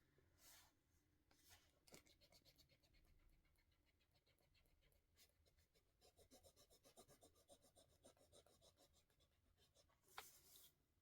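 Faint writing on paper: a few short scratches, then a long run of quick, fine strokes, and one louder scrape near the end.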